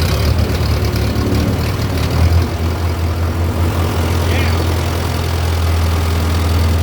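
Tractor engine running just after starting: uneven for the first couple of seconds, then settling into a steady idle.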